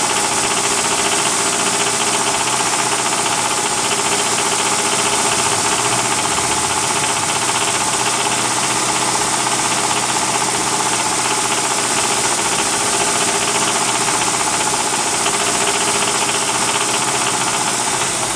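Mitsubishi 4G64 2.4-litre GDI inline-four running at a steady speed with a rapid, continuous knocking. The owner cannot tell what is causing the knock.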